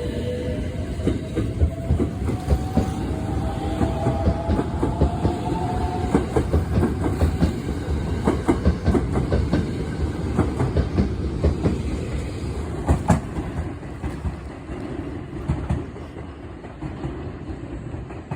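JR West 289-series electric train pulling out, its Mitsubishi IGBT VVVF inverter whining and rising in pitch as it accelerates over the first six seconds. The wheels then clack over rail joints as the cars roll past, with one louder knock about thirteen seconds in, and the sound fades toward the end.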